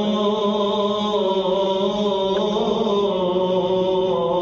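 A single voice chanting a devotional poem in praise of the Prophet, unaccompanied, holding long notes that waver slowly in pitch.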